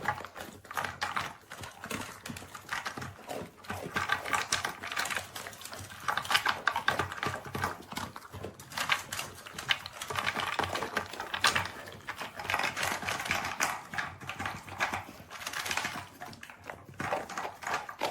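Dog eating from an anti-gulp slow-feeder bowl: a fast, irregular clicking and clatter of food against the bowl.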